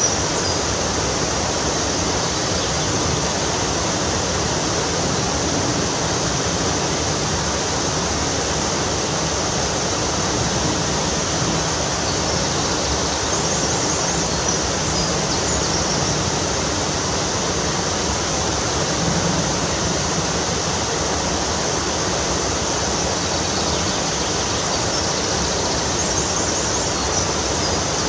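Loud, steady rush of water spilling down a cascade on a stream.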